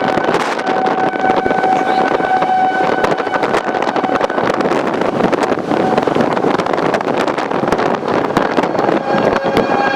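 Wind noise rushing over the microphone, with an outdoor tornado warning siren's steady tone sounding through it. The siren fades out about four seconds in and comes back near the end at a slightly higher pitch.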